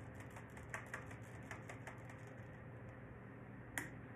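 A run of light clicks and taps, then one sharper tap near the end, from painting tools being handled on the work table, over a steady low hum.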